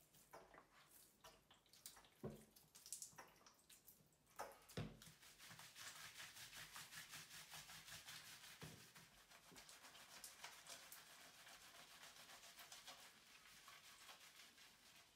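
Faint wet squishing and rubbing of hands working shampoo lather into a shih tzu's wet fur, steady from about five seconds in. A few soft knocks and drips come before it.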